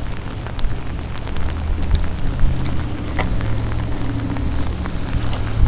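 Heavy rain falling in a downpour, a steady hiss with sharp drop ticks close by. A low steady hum rises under it from about two seconds in and fades near the end.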